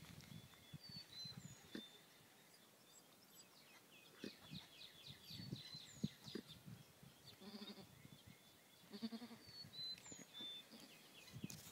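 Goats bleating faintly: a Nubian doe and her newborn twin kids, with two short bleats, the first about seven and a half seconds in and the second at about nine seconds.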